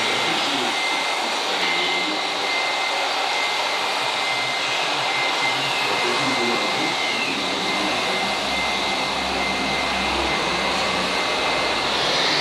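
Radio-controlled Komatsu hydraulic excavator model with its hydraulic pump running as the boom and bucket work: a steady whirring with a thin, steady high whine that drops out near the end.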